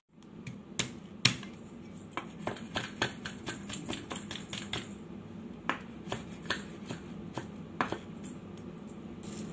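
A cleaver chopping garlic on a wooden cutting board: sharp, irregular knocks of the blade striking the board, about two to three a second, with a short pause midway.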